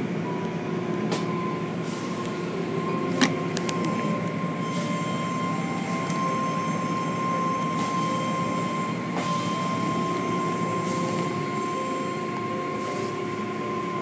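Automatic tunnel car wash heard from inside the car: a steady rush of water spray and hanging cloth strips sweeping over the windshield and body, with a steady high tone running through it. A sharp knock about three seconds in.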